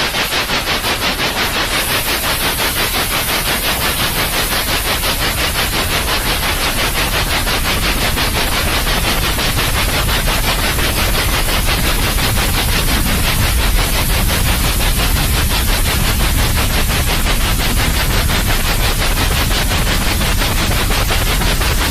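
Baby-soothing white noise: a loud, continuous rushing hiss with a fast, even pulse, about three beats a second, that never stops.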